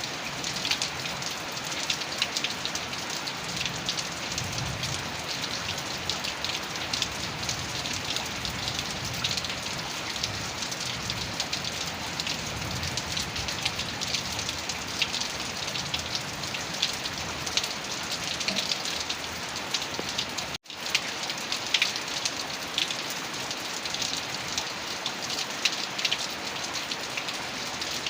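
Heavy rain pouring steadily, with dense pattering of drops hitting a surface. The sound drops out for an instant about two-thirds of the way through.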